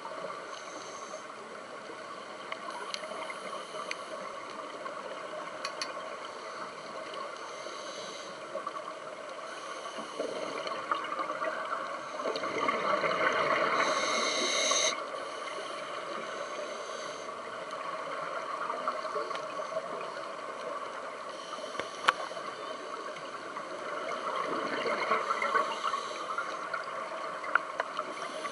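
Scuba divers' regulator breathing heard underwater: rushes of exhaled bubbles every few seconds over a steady muffled hiss, the longest and loudest about twelve seconds in.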